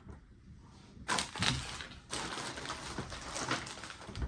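Plastic lure packaging crinkling and rustling as it is handled, with scattered clicks: a short burst about a second in, then a longer stretch of rustling.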